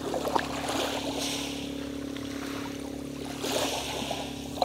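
Small waves washing onto the shore, swelling twice, over a steady low hum from a boat engine offshore, with small crackling clicks as a live sea urchin's spiny shell is broken open by hand.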